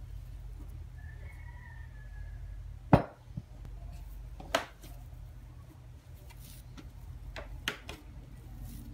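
Bread dough being kneaded by hand on a plastic cutting board, with a few knocks as the dough is pressed down and the board shifts on the table, the loudest about three seconds in. A low steady hum runs underneath.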